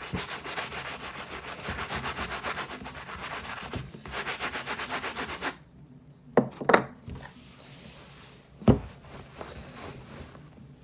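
A cleaning brush scrubbing a sneaker's rubber sole in fast, even back-and-forth strokes, which stop about halfway through. A few sharp knocks follow, as the brush or shoe is handled.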